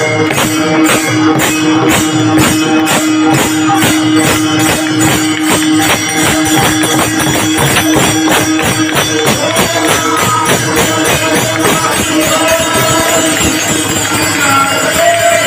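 Devotional kirtan music: a pakhawaj (two-headed barrel drum) played with brass hand cymbals (taal) clashing in a fast, steady rhythm of about five strokes a second. A note is held through the first six seconds, and voices sing from about ten seconds in.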